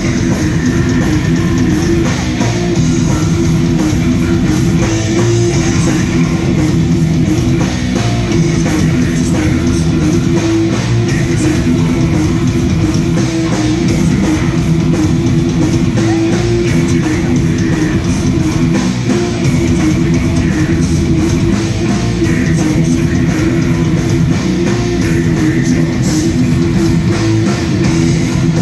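Black metal band playing live: distorted electric guitars and a drum kit, loud and continuous.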